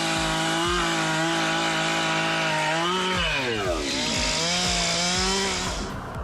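A chainsaw engine running at high speed in a cut, with a steady high note. About three seconds in its pitch sags as it takes load, then climbs back up, and the sound fades out near the end.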